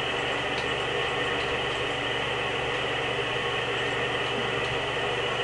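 A steady mechanical hum and whir that does not change.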